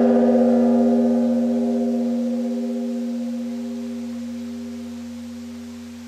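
A struck metal instrument, a temple-style bell or gong, ringing out after a single stroke. Several steady tones fade slowly, with a slight waver in the tone.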